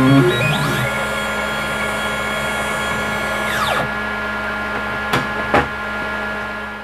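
CNC milling machine running with its spindle and end mill turning, a steady hum with several held tones. A rough rumble comes in the first second while the end mill is in the aluminium block. A whine rises in pitch, holds, then falls away about three and a half seconds in, and two sharp clicks follow near the end.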